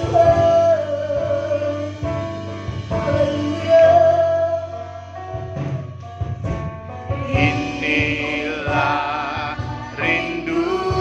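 Worship song: voices singing with vibrato over a steady instrumental accompaniment with a beat, the singing getting fuller about seven seconds in.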